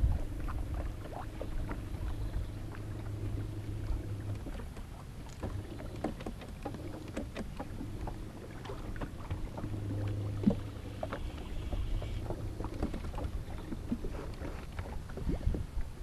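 A boat motor hums steadily at low speed. It cuts off about four seconds in and runs again briefly a little after ten seconds, with small clicks and knocks of gear in the boat.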